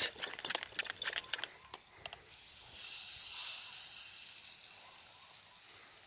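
Garden pressure sprayer's nozzle hissing as liquid is sprayed onto tree leaves. The hiss swells about three seconds in and then fades away. Light clicks and rustling come before it.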